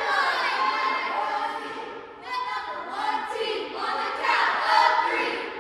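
Cheerleading squad of girls yelling a cheer together in unison while stunting, in several loud phrases.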